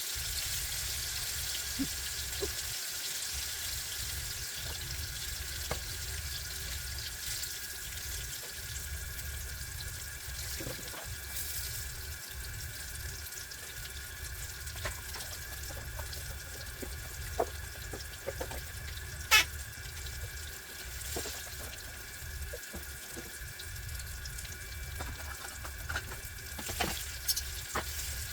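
Cornmeal-breaded tomato slices frying in hot oil in a cast iron skillet: a steady sizzle with scattered small crackles and one sharper pop partway through.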